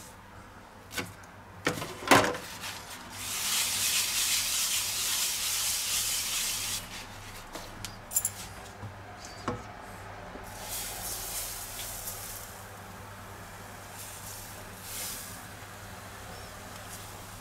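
Kitchen utensils clicking and knocking against a nonstick frying pan on an induction hob. About three seconds in comes a loud hiss lasting a few seconds, then a few more light clicks and a fainter hiss.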